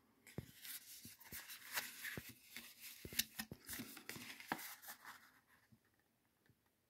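Faint crackling and rustling of a folded paper perfume sample card being unfolded and handled, many small crinkles that stop about five seconds in.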